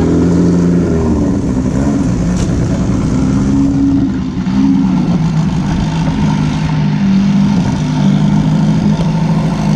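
Air-cooled turbocharged Volkswagen Beetle engine idling. A rev falls away right at the start, and the pitch rises briefly a couple of times around three and five seconds in.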